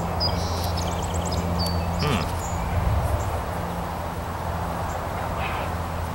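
Outdoor ambience: small birds chirping in short high notes, with a quick trill early, over a steady low hum.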